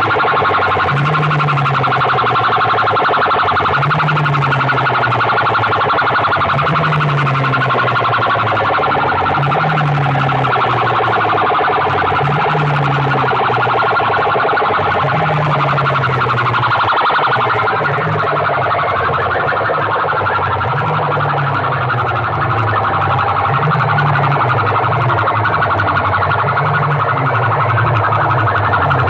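Banks of horn loudspeakers blaring a loud, continuous siren-like wail. The wail rises and falls in a pattern that repeats about every one and a half seconds.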